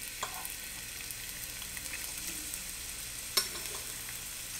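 Chopped red onion frying in hot oil in a frying pan: a steady sizzle with small crackles. A single sharp tap sounds a little past three seconds in.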